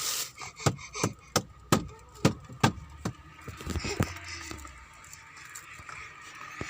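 A quick run of about ten sharp knocks or taps over three or four seconds, each with a dull thud under it, then a quieter stretch.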